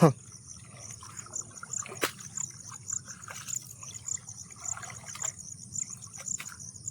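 Water trickling and splashing lightly in a flooded rice paddy, in small irregular splashes with one sharper splash about two seconds in. Insects chirp steadily in rapid high pulses behind it.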